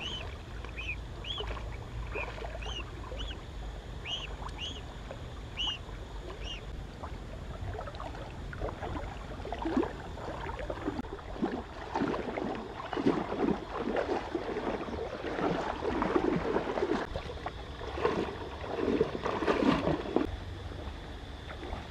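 A young waterfowl chick peeping, about two short high calls a second, stopping about six seconds in; then irregular water splashing and sloshing that grows louder.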